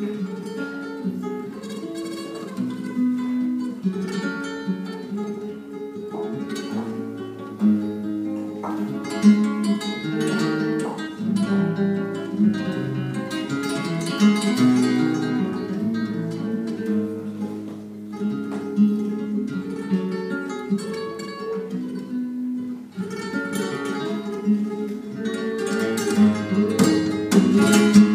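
Solo nylon-string guitar played live in flamenco style: picked melodic lines over bass notes, broken by quick bursts of strumming that come thickest near the end.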